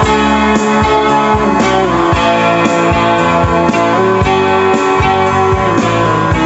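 Background music: a guitar-led passage with a steady beat and no singing.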